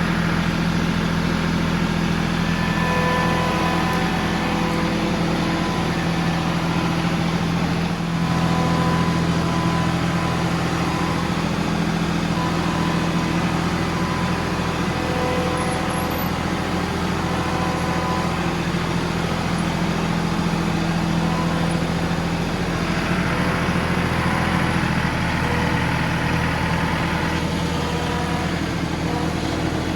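John Deere 2038R compact tractor's three-cylinder diesel running steadily, with a slight change in its note about eight seconds in and a hiss joining it for a few seconds near the end.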